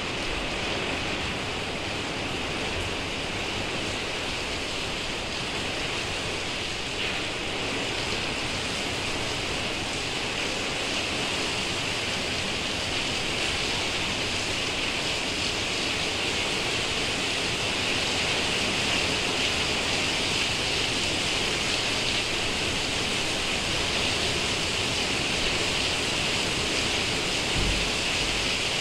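Heavy wind-driven rain pouring down in a steady hiss that grows a little louder toward the end.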